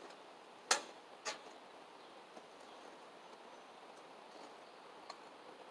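Two sharp metallic clinks about half a second apart, a second in, as a long metal grill tool knocks against hot charcoal briquettes and the firebox of a small portable charcoal grill, over a faint steady outdoor background.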